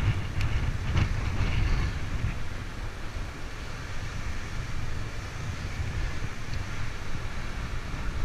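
Wind buffeting the climber's camera microphone as a steady low rumble, with a few brief clicks in the first two seconds.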